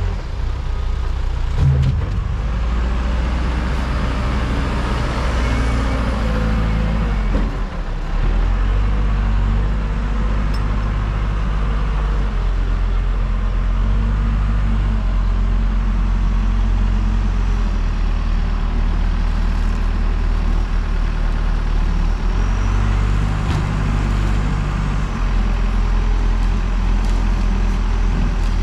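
Diesel engine of a JLG 10/55 telescopic loader running under load as it travels and lifts logs, its engine note stepping up and down a few times with the throttle.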